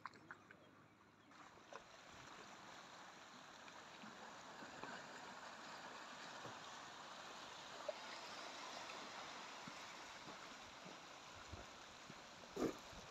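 Faint, steady wash of small sea waves lapping against rocks and pebbles at the waterline, with a few light clicks and a sharper knock near the end.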